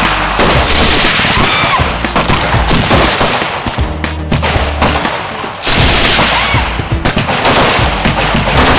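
Long bursts of fully automatic fire from a tripod-mounted machine gun, shots following each other in rapid strings with short breaks between bursts.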